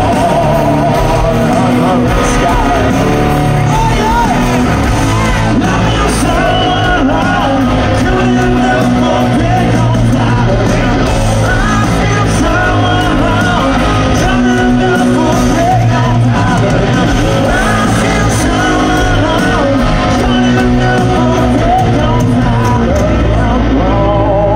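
A hard rock band playing live, with distorted electric guitars, bass, drums and a singer, loud and steady, heard from among the audience.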